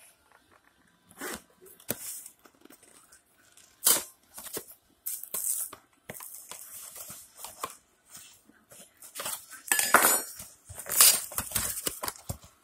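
Cardboard snack box being torn open by hand: irregular scraping and ripping noises, louder and busier in the last few seconds.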